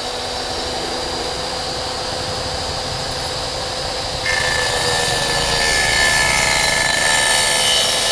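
Daken 255 mm miter saw's motor running at speed with a steady whine. About four seconds in, the spinning blade is lowered into the saw table to cut its kerf slot, and the sound turns suddenly louder, with a rasping cutting noise, until the end.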